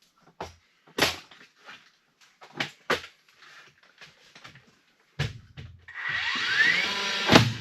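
A few separate sharp wooden knocks and clatters from lumber framing work. Background music with drums comes in about six seconds in.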